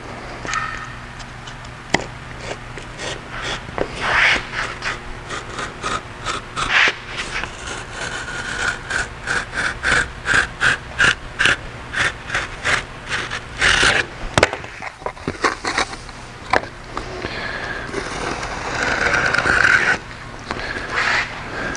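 Razor knife cutting and scraping along the edge of a stiff white gauge blank on a wooden workbench: a run of short scraping strokes, about two a second, then one longer scrape near the end.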